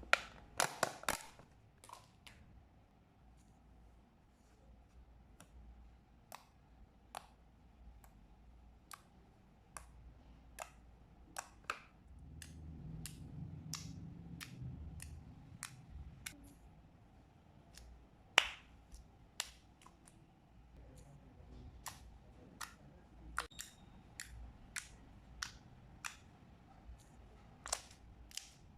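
Thick, glossy white-glue slime being handled, giving sharp irregular clicks and pops about one or two a second as small air pockets in it burst. One pop about two-thirds through is louder, and a low squishy rumble rises around the middle.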